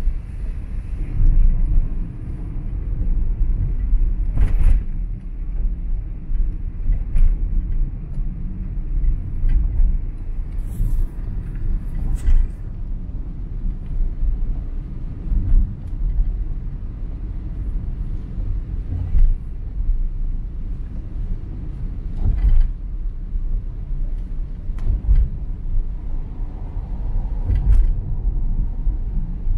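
Car driving on a rain-wet road: a steady low road rumble with a haze of wet-road noise, and a short knock every two to three seconds.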